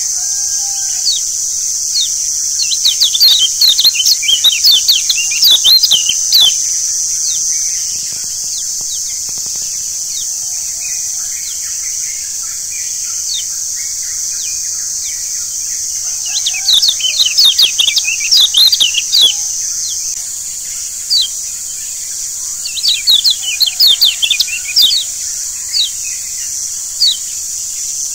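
Yellow white-eye (kecial kuning, a Zosterops) song: three fast bursts of high, sharp chirps, about three seconds in, around sixteen seconds and around twenty-three seconds, with single chirps between. A steady high-pitched hiss runs underneath.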